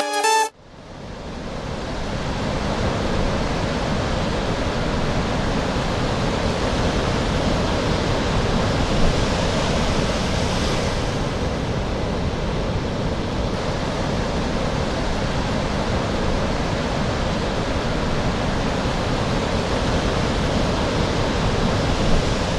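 Ocean surf breaking on a sandy beach: a steady wash of waves that fades in over the first couple of seconds and then holds even.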